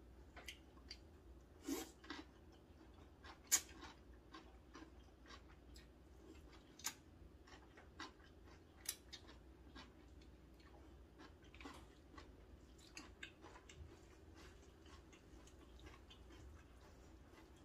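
Faint close-up eating sounds of a person slurping and chewing cold Korean noodles (janchi guksu), with scattered short clicks and smacks; the sharpest come about 3.5, 7 and 9 seconds in.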